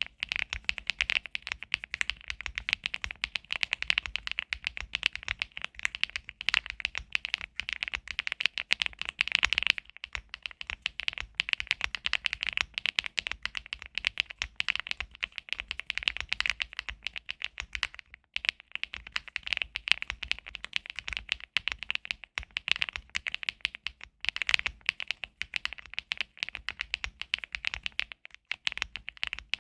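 Zoom75 mechanical keyboard with HMX Swift switches being typed on steadily and fast, a dense run of keystroke clacks with a few short pauses.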